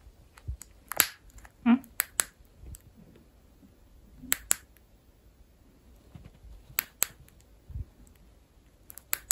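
Sharp plastic clicks from the push button of a small silicone-strap LED light, mostly in quick pairs every two seconds or so, as it is switched on and off. A short wavering tone sounds between the first clicks.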